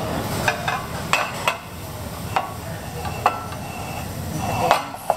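Several short clinks of cutlery and crockery, some ringing briefly, spread over a few seconds against a steady background noise of a dining room.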